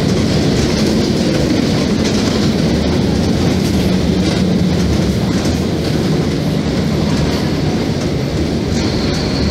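Mercedes-Benz OF-1724 BlueTec 5 bus's front-mounted diesel engine running steadily while the bus drives along, heard from inside the cabin as a low, even hum mixed with road noise.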